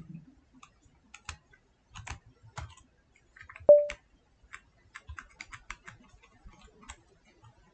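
Typing on a computer keyboard: irregular key clicks, with one short, sharp ringing ping a little over three and a half seconds in, the loudest sound.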